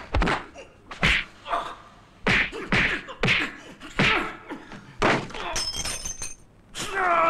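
A rapid series of film sound-effect punch and kick impacts, about a dozen sharp thwacks with swishes of fast limbs between them. Near the end a man lets out a loud, strained shout.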